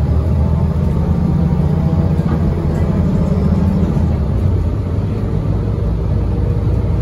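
Interior of a 2017 Gillig BRT transit bus under way: engine and drivetrain running with a steady low drone, heard from inside the cabin.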